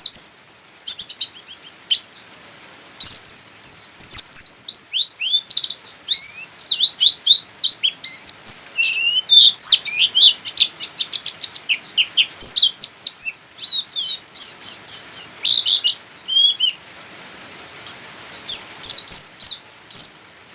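Pleci (white-eye) singing hard and without let-up: rapid, high-pitched, jumbled chirps and trills in long runs, with a short break about seventeen seconds in.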